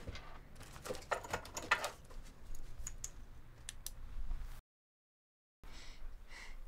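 Quiet clicks and rustles, bunched about a second or two in, with a few lone clicks after, then a second of dead silence about four and a half seconds in.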